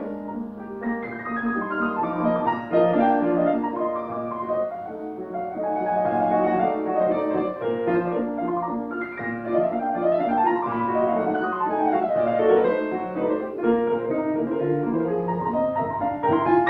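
Steinway grand piano played solo in a classical style, dense with notes and with fast runs sweeping up and back down the keyboard.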